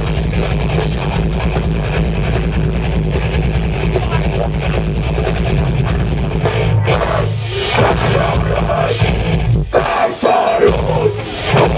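Live rock band playing loudly, guitars over a drum kit, in a heavy style. Near the end the band stops dead for a moment several times, in stop-start hits.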